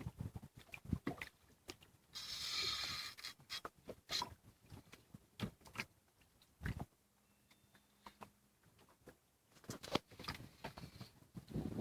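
Irregular clicks and knocks of fishing gear being handled on a small boat. About two seconds in comes a hissing, rasping burst lasting about a second.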